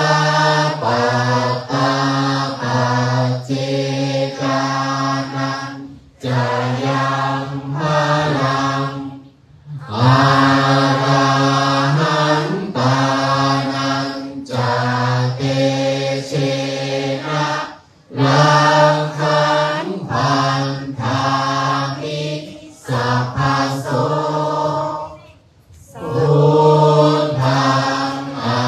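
Thai Buddhist monks chanting in Pali in unison, in low men's voices. Long phrases are held on level pitches and broken by brief pauses for breath, four times.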